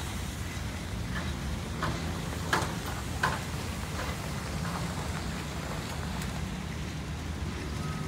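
A van driving past close by on a gravel road: a steady low engine rumble with tyres crackling over the gravel, and a few sharper clicks near the middle.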